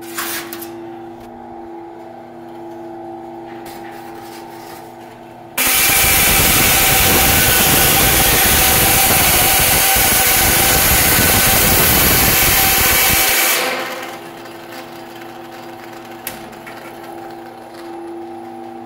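Central Machinery 14-inch bandsaw, geared down for metal, runs with a steady hum. From about five and a half seconds in until near thirteen and a half, its 14 TPI metal blade cuts through thin sheet metal with a loud, even cutting noise. The noise then stops and the saw hums on.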